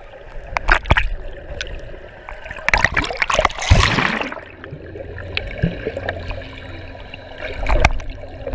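Pool water heard underwater through an action camera's housing: a muffled wash broken by sudden bursts of bubbles. The loudest is a long rush of bubbles around the middle, and there is another burst of splashing near the end as the camera nears the surface.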